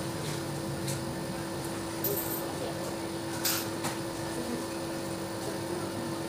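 Wall-mounted split air conditioner running with a steady hum, with a couple of faint clicks.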